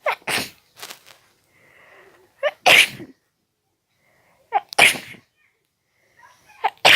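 A person sneezing uncovered, several times in a row, with wet sneezes: a couple of short quick sneezes at the start, then three full sneezes about two seconds apart, each preceded by a short catch of breath.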